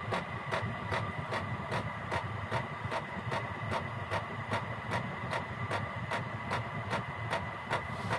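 Gearlasso 8 kW Chinese diesel heater running at its lowest setting, gear 1. Its fuel pump ticks evenly, about two and a half times a second, over the steady low rumble of the burner and blower fan, with a faint steady whine.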